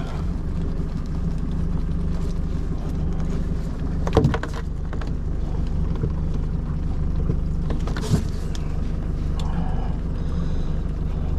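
Boat motor idling steadily with a low hum, and two short knocks about four and eight seconds in.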